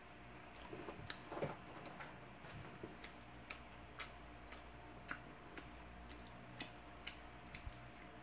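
Close-miked chewing: faint, irregular wet clicks about twice a second as sticky braised chicken and rice cakes are eaten, with a soft squish about a second and a half in.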